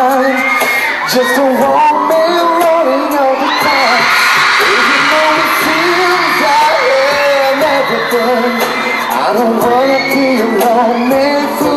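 Live pop song: a male singer singing into a handheld microphone over backing music, amplified through the hall's sound system, with the crowd cheering in places.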